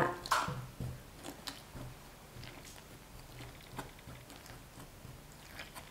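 Chopsticks stirring dry flour in a bowl as water is poured in: faint soft scraping with scattered light ticks, loudest right at the start.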